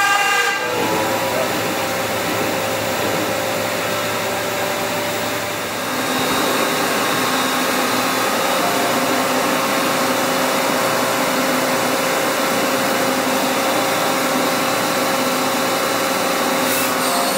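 Doosan Puma V550 CNC vertical turning center running under coolant: a steady machine hum with the hiss of coolant spray inside the enclosure. It grows a little louder about six seconds in.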